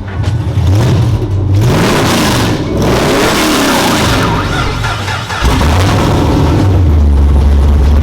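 A car engine revved several times, its pitch climbing and falling with each blip of the throttle. About five and a half seconds in, the revving stops and a steady deep hum takes over.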